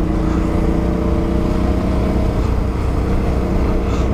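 Suzuki V-Strom 650's V-twin engine, fitted with a Delkevic exhaust, running at a steady, even throttle under a hiss of wind and road noise as the bike is ridden.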